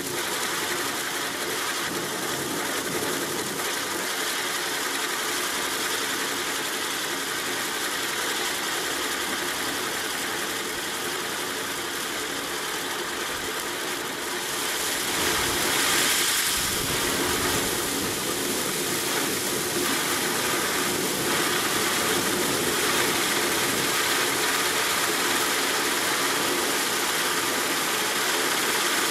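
Spinning wheel firework hissing steadily as it throws sparks, its sound played in reverse; the hiss grows louder about halfway through.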